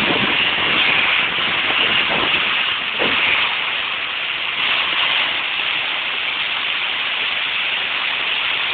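Heavy hailstorm: hail and rain pouring down in a steady, dense hiss, a little louder for the first three seconds and then easing slightly.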